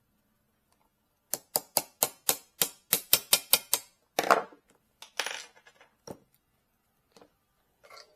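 A quick run of about a dozen sharp metallic taps, about five a second, then a louder rattling clatter, a shorter one, and a single click: small metal parts and tools being worked on the bench.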